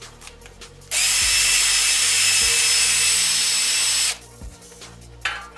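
Makita BDF458 cordless drill-driver running flat out for about three seconds to test-spin the ice auger through its new welded hex adaptor: a steady high whine that starts about a second in and cuts off suddenly, with a short burst near the end.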